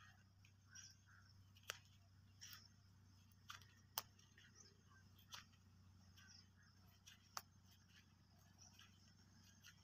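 Near silence: faint outdoor room tone with a steady low hum and a few scattered faint clicks.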